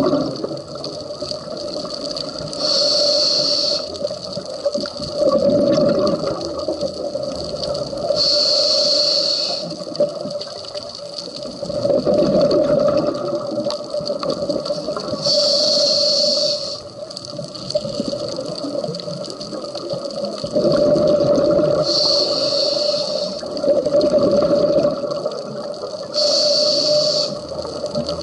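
Scuba diver breathing through a regulator underwater, about one breath every five to six seconds: five high hissing inhalations, each about a second long, alternating with gurgling exhaled bubbles, over a steady hum.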